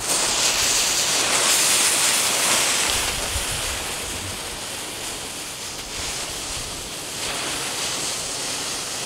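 Three Explode Crazy Eyeball ground spinners hissing as they burn. The hiss starts suddenly and eases slightly after about three seconds. They burn in place without spinning, because the ground is too hard for them to turn.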